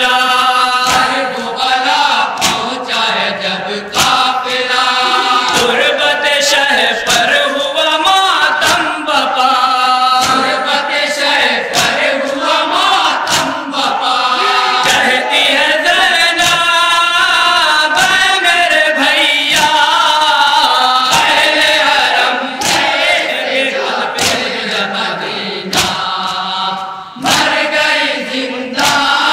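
A group of men chanting an Urdu noha (mourning lament) through a microphone, a lead reciter's voice with the chorus joining in. Sharp slaps of hands beating on chests (matam) keep a beat under the chant.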